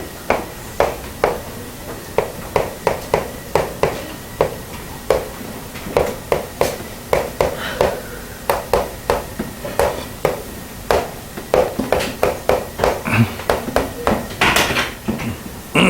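A steady run of short, light taps and clicks on a hard surface, irregular at about two to three a second, with a longer, louder scrape near the end.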